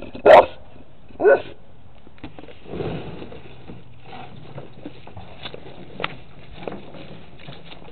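A dog barks twice, loudly about a quarter second in and again about a second later, then sniffs with its nose raised toward a bucket holding a captured possum, among faint shuffling.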